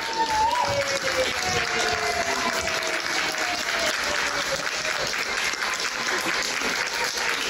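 Audience applauding steadily, with a few pitched calls rising above the clapping.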